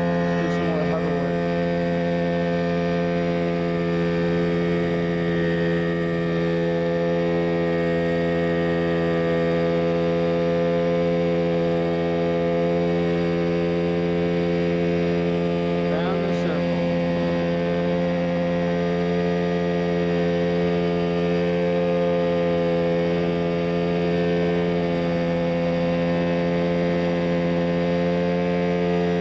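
Mosquito Air ultralight helicopter in flight, heard on board: its engine and rotor running at a steady, constant speed, a steady hum.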